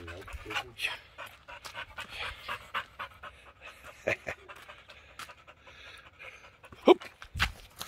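Dog panting in quick, even breaths, about two to three a second. A single loud, short sound cuts in about seven seconds in.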